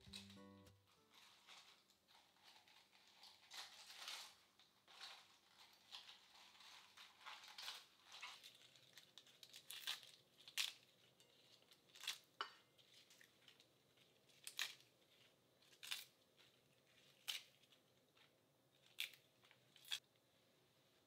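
Crisp iceberg lettuce leaves torn and crinkled by hand. Then, from about halfway, a string of sharp single knife strokes on a cutting board, roughly one every second or so, as a cucumber is cut into pieces.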